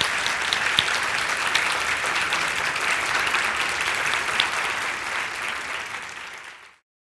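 Audience applauding, a dense steady clapping that fades out near the end and stops.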